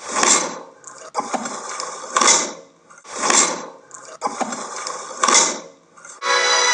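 A meat cleaver hacking into raw meat on a wooden chopping block: wet, heavy strokes about once a second, with sharp clicks between some of them. Music comes in near the end.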